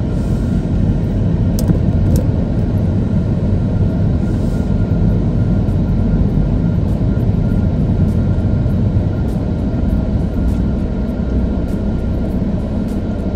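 Steady low rumble of a car driving slowly, engine and tyre noise heard from inside the cabin, with a faint steady hum and a couple of light clicks about two seconds in.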